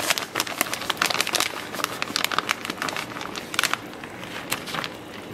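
Plastic bag of shredded cheese crinkling in the hand as the cheese is shaken out of it, a dense run of irregular sharp crackles that thins out near the end.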